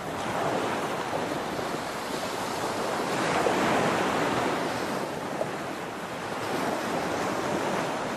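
Steady rushing water noise, like heavy rain or surf, swelling slightly a few seconds in.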